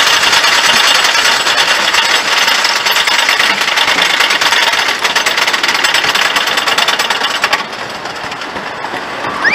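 Lightning Racer wooden roller coaster's lift chain clattering, with the anti-rollback dogs clicking rapidly as the train is hauled up the lift hill. Near the end the clatter stops as the train crests the top and releases from the chain, and a rider's scream starts to rise right at the end.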